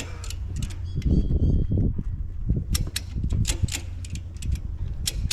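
A run of sharp, irregular clicks and rattles of hardware being handled, over a steady low rumble.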